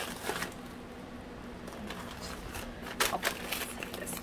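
Tissue-paper wrapping rustling as a package is handled and its yarn tie pulled away, in a few short bursts with the loudest about three seconds in.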